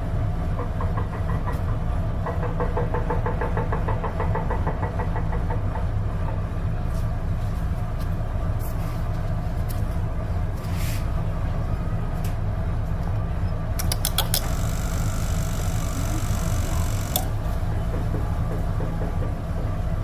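A steady low machine drone runs throughout, with a fast pulsing rattle in the first few seconds. Over it come scattered small clicks as a blade fuse is handled and pushed into a plastic fuse box, including a quick run of clicks and a short rustle about two-thirds through.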